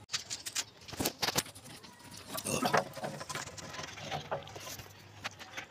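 Plastic water pipe and its fittings being handled: a run of light clicks and knocks, closely spaced in the first second and a half, then sparser taps.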